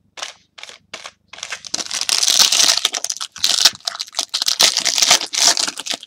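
Foil wrapper of a trading-card pack crinkling and tearing as it is ripped open by hand. A few short rustles come first, then a dense run of crinkling from a little over a second in until the end.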